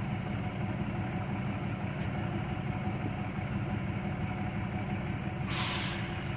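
Vehicle engine running steadily with a low rumble, and a short burst of hissing air about five and a half seconds in.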